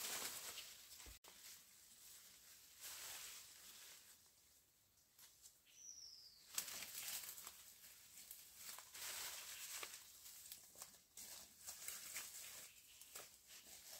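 Faint, intermittent rustling and handling noises, with one short, high, falling chirp about six seconds in.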